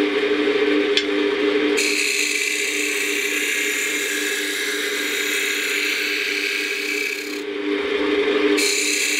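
Wood lathe motor running with a steady hum while a hand-held gouge cuts a spinning wood spindle. The cut is a hissing, shaving sound that starts about two seconds in, breaks off briefly about a second before the end and then picks up again.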